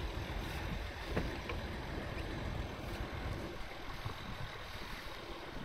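Steady low rumble and hiss aboard a sailing yacht under way on a river, with a couple of faint clicks about a second in.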